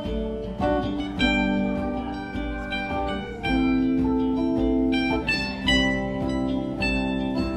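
Live band playing an instrumental passage of a song in waltz time: electric guitars picking sustained notes over congas and keyboard.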